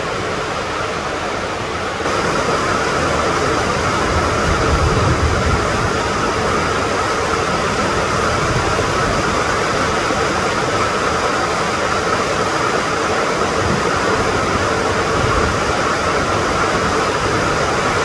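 Steady heavy rain falling as a dense, even hiss, growing louder about two seconds in, with low rumbles coming and going beneath it.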